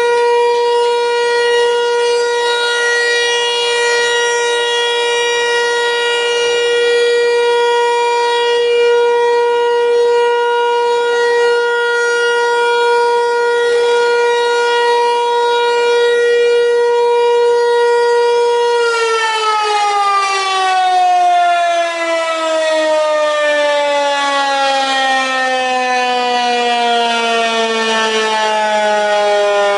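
ASC T-128 electromechanical warning siren sounding a steady single tone during a routine test, then winding down about two-thirds of the way in, its pitch falling smoothly and steadily.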